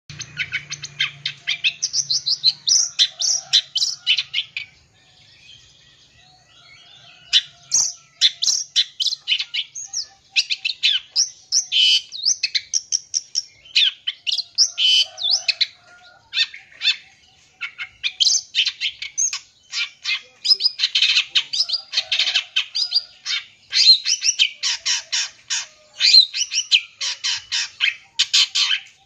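Long-tailed shrike (cendet) singing a fast, scratchy chattering song packed with mimicked notes of other birds, with a short lull about five seconds in.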